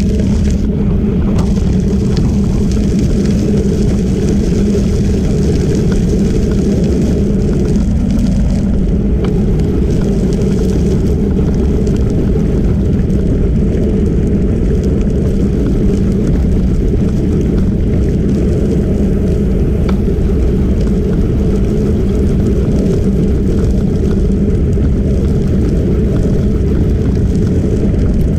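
Steady, loud wind noise on the microphone mixed with tyre noise on a crushed-stone trail, from a camera moving along it at cycling speed.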